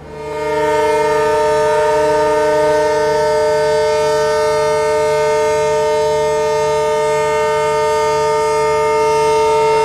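Diesel locomotive air horn sounding one long, loud, steady blast, a chord of several tones together, as the train signals its departure. It starts about half a second in.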